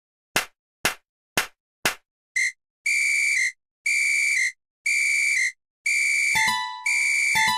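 Four quick ticks, then a high electronic tone beeping on and off about once a second. Near the end a lower second tone and low thumps join in as music starts.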